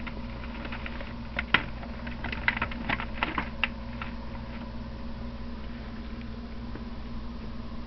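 Steady electrical hum, with a short run of crackling clicks starting about a second and a half in and lasting about two seconds.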